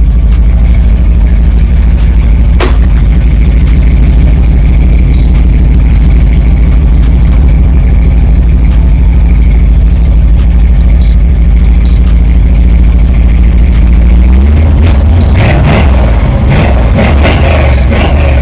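Car engine running loud at idle with a deep, pulsing exhaust, then revved up about fourteen seconds in, its pitch rising and wavering.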